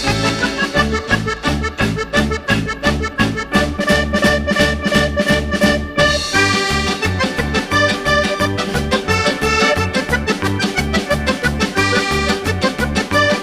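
Upbeat background music with a steady beat, led by an accordion-like melody.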